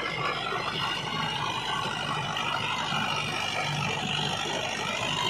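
Mahindra 475 DI tractor's 42 hp four-cylinder diesel engine running steadily under load as it pulls a 7-foot rotavator. The rotavator's blades churn through dry, cloddy soil at the same time.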